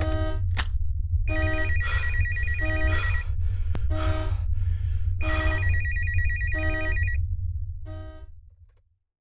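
Telephone ringing: two rings of about two seconds each, some four seconds apart, over a low rumble and other short repeating tones. It all fades out near the end.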